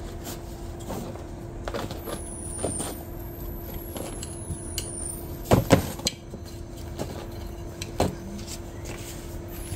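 Potting soil being filled in and pots handled while a seedling is transplanted, with a few knocks, the loudest about halfway through and another a couple of seconds later. Under it runs a steady hum.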